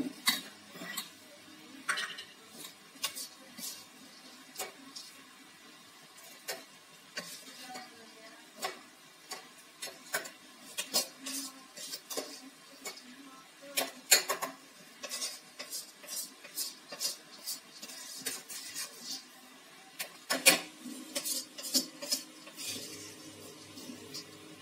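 A steel slotted spoon scraping and clinking against steel cookware while scooping roasted urad dal out of a kadhai into a mixer-grinder jar. The clinks come irregularly, with the loudest about fourteen and twenty seconds in.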